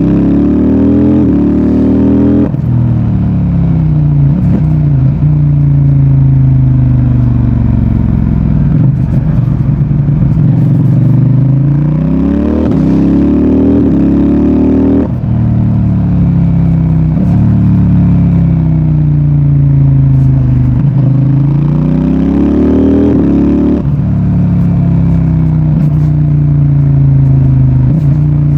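CFMOTO 800NK Advanced's parallel-twin engine and exhaust under way. The revs climb, then drop suddenly at quickshifted upshifts about two seconds in, around fifteen seconds in and near twenty-four seconds in. Between the climbs the revs fall away on deceleration, with short exhaust pops.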